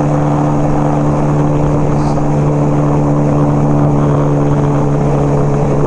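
1975 Kawasaki KZ400 parallel-twin motorcycle engine running at a steady cruising speed, its pitch holding even, with wind rumble on the microphone.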